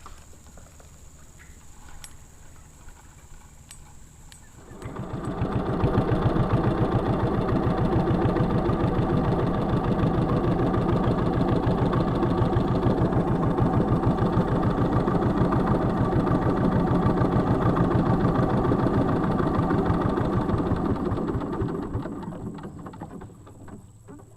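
A small engine runs steadily with a fast, even pulse. It comes in about five seconds in and fades away near the end.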